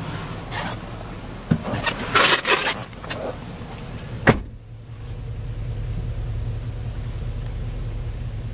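Clattering and rustling as things in a pickup cab are handled, then a single sharp thud about four seconds in as a cab door shuts. After it the outside sound is shut out and a steady low hum of the truck's engine idling fills the closed cab.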